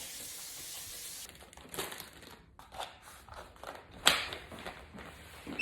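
Crinkling and rustling of plastic food packaging with small knocks of containers being handled, after a short steady hiss at the start; one sharper knock about four seconds in.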